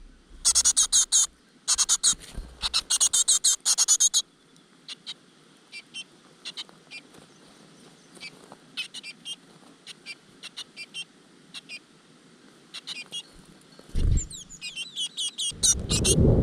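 Great tit nestlings begging: two bursts of rapid, high chirping in the first four seconds, then only scattered faint chirps. Near the end comes a thump, then a loud low rumbling noise with the chirping going on over it.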